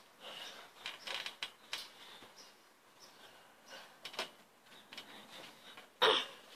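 Trampoline springs and frame creaking and squeaking in short, irregular bursts as someone moves about on the mat.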